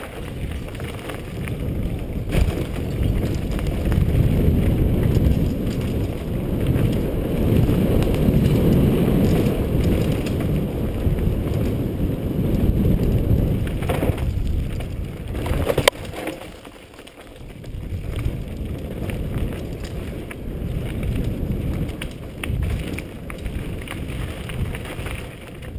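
Mountain bike ridden fast down a dirt trail, heard from a helmet-mounted camera: a continuous low rumble of tyres on dirt and wind on the microphone, with a few sharp knocks over bumps. It eases for a moment about two-thirds of the way through, then picks up again.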